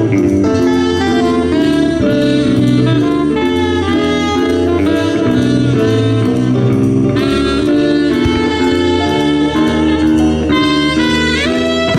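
A live jazz band playing, with a saxophone carrying the melody.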